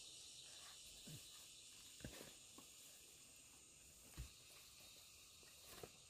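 Near silence outdoors: faint steady insect chirring, with about five soft knocks scattered through it.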